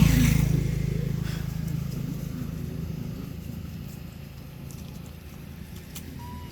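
A motor vehicle passes close by, its engine loudest at first, then fading away over a few seconds into a low, steady hum.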